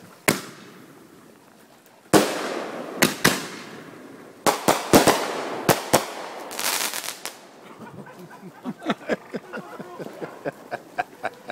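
Aerial fireworks bursting overhead: a single sharp bang, then from about two seconds in a run of loud bangs with crackling, giving way in the last few seconds to a string of smaller, quieter pops and crackles.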